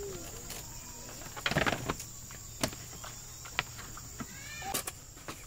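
Light knocks and clatter of plastic lids being set and pressed onto plastic storage boxes, the loudest cluster about a second and a half in, over a steady high insect buzz.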